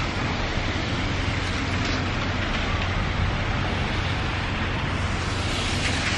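Steady city street ambience: a constant hiss of road traffic with a low hum beneath it.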